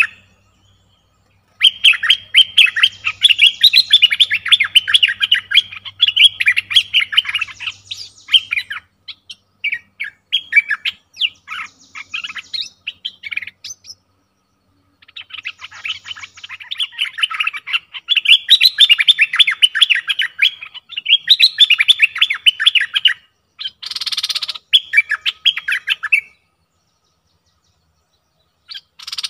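A caged songbird singing in long bouts of rapid, busy chirping and twittering, with a pause in the middle and a short rustling burst near the end.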